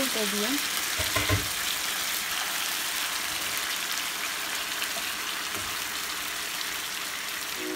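Marinated chicken pieces sizzling in hot oil in an uncovered frying pan, a steady hiss, with a couple of low knocks of the spatula about a second in.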